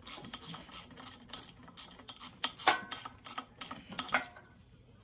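Hand ratchet clicking in quick, irregular strokes while loosening an intake manifold nut on a VW Beetle 1600cc dual-port engine, with a couple of louder clacks before it stops about four seconds in.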